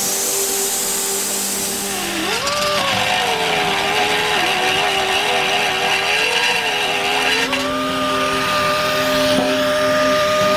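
Die grinder with a small burr deburring the cut edges of holes in a steel bracket. It gives a high whine over a grinding hiss, starting about two seconds in. The pitch sags and wavers as the burr bites into the metal, then rises and holds steady in the last few seconds as it spins free.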